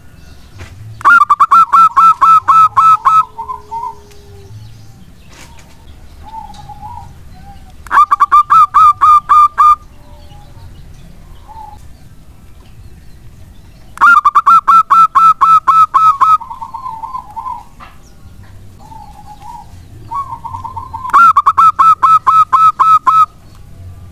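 Zebra dove (local perkutut) singing four times. Each bout is a quick run of clipped, ringing coos lasting about two seconds, trailing off into a few lower, softer notes, with short low coos in the gaps.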